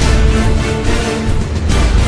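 Background music with a strong, steady low end and held notes.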